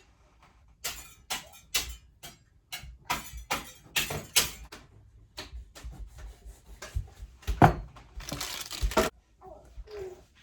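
Handling sounds of pie crust being pressed onto small baking dishes: an irregular run of short taps and knocks, with a brief scraping rustle near the end.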